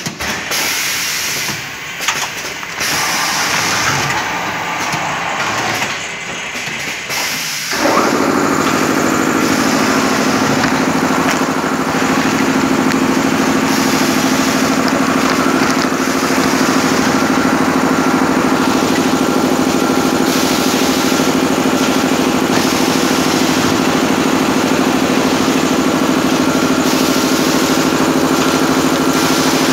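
Machinery on an automatic flour packing line, first with uneven mechanical noise; about eight seconds in a motor starts up and settles into a loud, steady hum of constant pitch.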